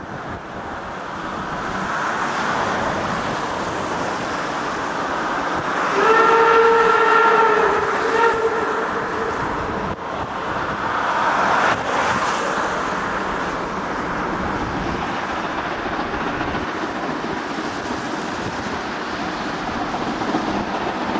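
Steam locomotive 50 3648, a two-cylinder 2-10-0 of German class 50, approaching under steam with a steady hiss of steam from its cylinders. About six seconds in, its steam whistle gives one long blast lasting about two and a half seconds, the loudest part.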